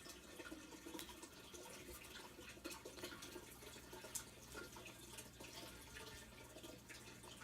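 Near silence with faint, irregular small ticks and nibbling clicks of a cockatiel's beak as it preens its feathers, over a low steady hum.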